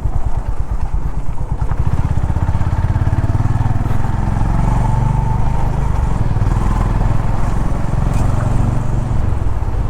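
Honda H'ness CB350's single-cylinder engine running steadily as the motorcycle is ridden, its low firing beat even throughout.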